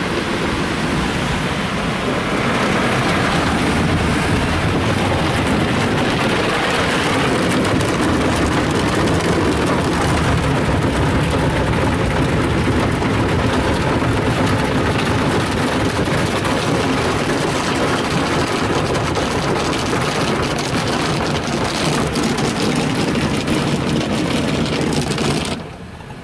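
Rinse water from a Ryko SoftGloss Maxx car wash spraying hard onto the car's windshield and body, heard from inside the car as a loud, steady rain-like rush. The spray cuts off suddenly near the end.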